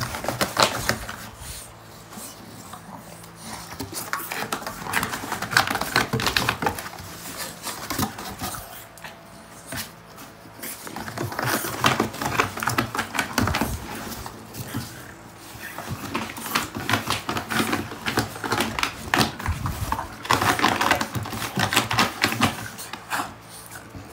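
French bulldog's claws scratching and digging at the cardboard bottom of a box, in repeated bouts of quick scraping clicks a few seconds apart.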